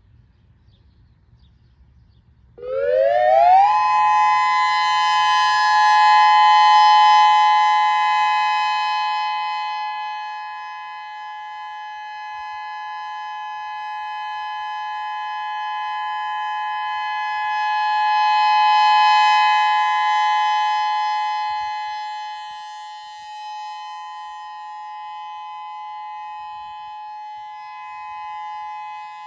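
Outdoor early warning siren winding up about two and a half seconds in, then holding a steady two-note wail that swells and fades twice. This is the sounding of a scheduled siren system test.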